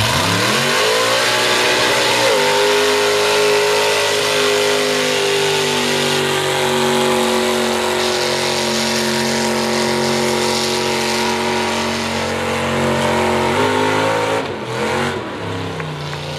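Mud bog truck's engine revving up hard at the launch and held at high revs as the truck churns through the mud pit, then dropping off about fourteen seconds in.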